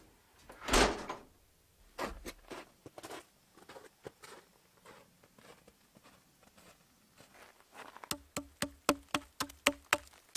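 Cabin door swinging open with a short loud rush about a second in, then scattered crunching footsteps in snow. About eight seconds in, a quick, even tapping starts, about four taps a second.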